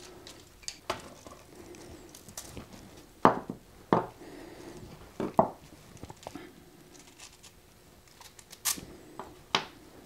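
Scattered sharp clicks and knocks of small-parts handling: a screwdriver working the screws of a ceramic thermocouple terminal block, and the screwdriver and ceramic parts being put down on a wooden workbench. The loudest knocks come about three seconds and five and a half seconds in.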